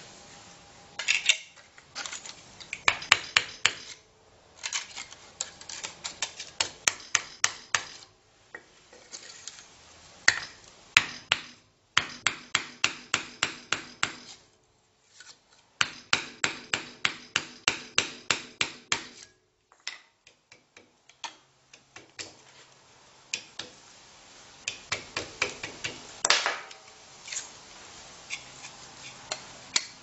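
Hammer tapping on a wooden block pressed onto heavy cable wound around a microwave-oven transformer core, squashing the round cable flatter and squarer. The taps come in quick runs of about four or five a second, with short pauses between runs.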